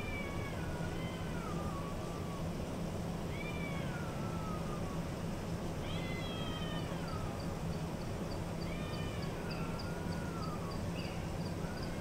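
A cat meowing loudly and repeatedly, about five drawn-out calls roughly three seconds apart, each falling in pitch at the end. Under it runs the steady hum of a hotel ventilation system.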